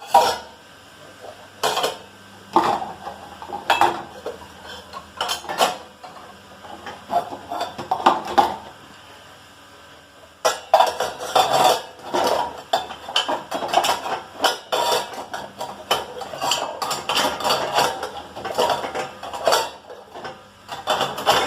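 Dishes and kitchen utensils clattering and clinking as they are set into dishwasher racks. The knocks come in irregular bursts: sparse at first, then a dense run of clatter after a short lull about halfway through.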